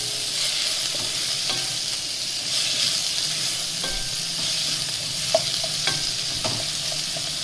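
Tomatoes, onion and green chillies sizzling as they fry in oil in a stainless steel kadai, stirred with a spatula. A few short scrapes against the pan come in the second half.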